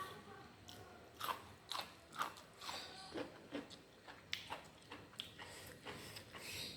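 A person chewing and biting crunchy food close to the microphone, with a series of crisp crunches about two a second starting about a second in.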